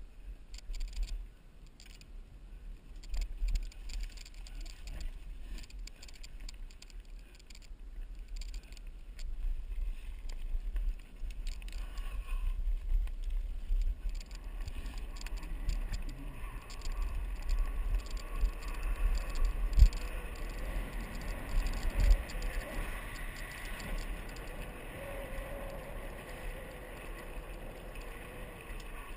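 Mountain bike ridden over a rough forest trail: a steady low rumble of wind on the microphone, with rattles and knocks from the bike over bumps and two sharp thumps about two-thirds of the way through.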